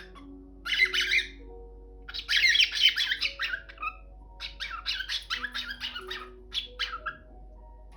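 Cockatiel squawking and chirping in bursts: a short call about a second in, a longer run of harsh calls around two to three seconds, then a string of quick chirps from about four and a half to seven seconds. Background music with held notes plays underneath.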